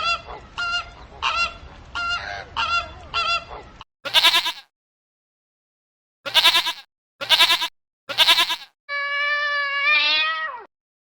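A goose honking repeatedly, about two honks a second, for the first four seconds. Then a different animal gives four short, separate calls, followed by one long pitched call that falls away at its end.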